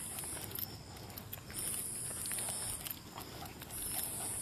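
Footsteps of a person and a leashed German Shepherd walking on a paved road at night, as faint patter and scuffs. High-pitched insect trills about a second long recur every couple of seconds over them.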